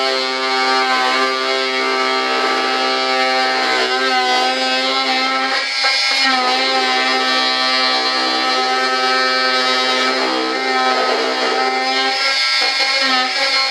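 Handheld high-speed rotary tool with a cutting wheel cutting through a plastic model canopy: a steady, loud whine that sags briefly in pitch as the wheel bites, about six seconds in and again near the end.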